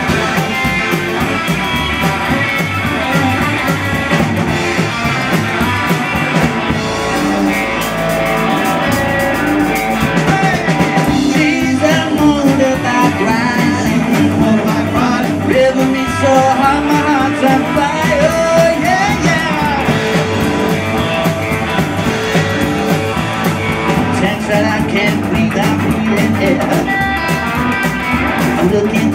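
Live band playing a rock and roll number, led by a hollow-body electric guitar over an upright double bass.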